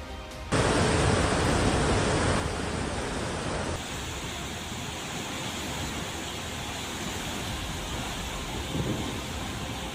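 Floodwater rushing in a river torrent: a steady noise of churning water. It starts suddenly about half a second in and is loudest for the first two seconds, then settles to a steadier, somewhat quieter rush.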